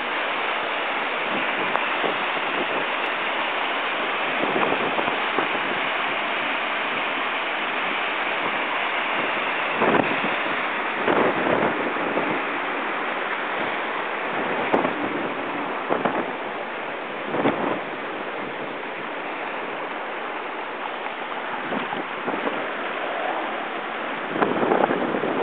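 Storm runoff pouring over a stone wall and rushing along a roadside channel: a steady rush of water, with wind buffeting the microphone in short gusts several times.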